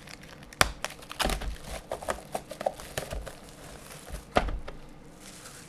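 Plastic shrink wrap crinkling and tearing as it is pulled off a boxed set of trading cards, with irregular sharp crackles and a few knocks from the box being handled.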